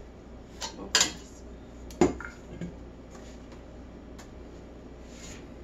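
Stainless steel 8-quart stand-mixer bowl knocking and clanking against the mixer's bowl-lift arms and the table as it is lifted off and set down. There are two loud metallic knocks about a second apart, the second ringing briefly, followed by a few lighter taps.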